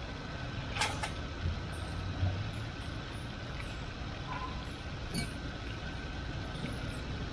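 Meat and tomatoes sizzling in oil in karahi woks over a charcoal fire, over a steady low rumble of street traffic. A couple of sharp metal clinks, about a second in and about five seconds in, from the ladle against a wok.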